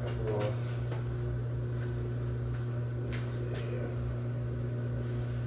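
Top-load washing machine running a quick rinse cycle, giving a steady low hum with a few faint clicks.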